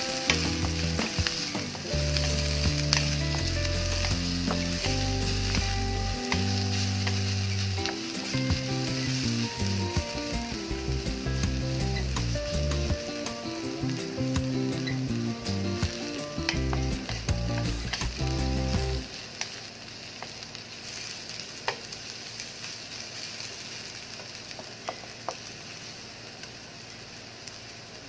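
Sliced onions sizzling in hot oil in a wok, stirred with a wooden spatula that scrapes and taps the pan. Background music plays over it and stops about two-thirds of the way through, leaving the sizzle alone.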